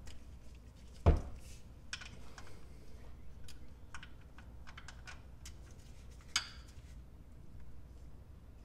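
Light, irregular clicks and taps of a ratchet and 17 mm socket being handled and set onto the oil drain bolt. There is a louder knock about a second in and a sharper click a little after six seconds.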